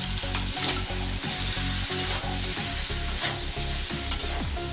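Green peas and cauliflower florets sizzling as they fry in a metal kadai, with a spatula scraping and knocking against the pan several times as they are stirred.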